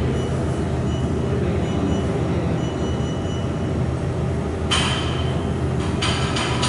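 Steady low machine hum. About five seconds in, a hiss lasts about a second, and shorter hisses follow.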